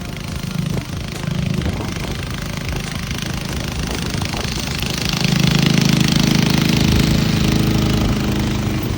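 Small gasoline engine of a remote-control track mower running steadily, growing louder about five seconds in.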